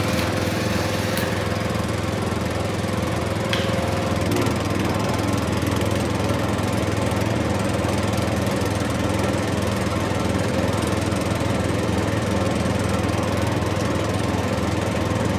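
Small electric motor and plastic gearbox of a wired toy tractor running steadily as it pulls its loaded trolleys, a constant mechanical whir.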